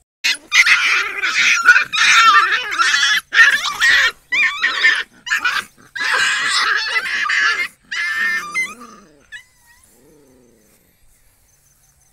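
Puppies play-fighting: high-pitched squealing growls and yelps in quick bursts, almost without a break, for about eight seconds. The bursts then give way to a couple of lower growls and a few faint whimpers.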